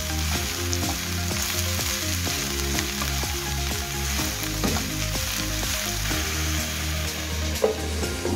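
Oyster mushrooms sizzling as they fry in oil in a pan, stirred with a wooden spatula, with one sharp knock near the end. Background music plays underneath.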